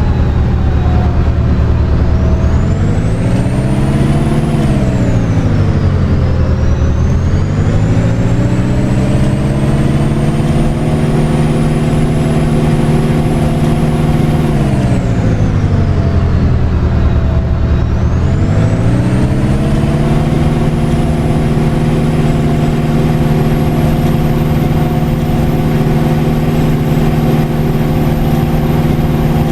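Double-decker bus driving, heard from on board. Its engine note and a high whine rise as it picks up speed, fall as it slows about a third of the way in, and repeat this about halfway through. The bus then holds a steady speed.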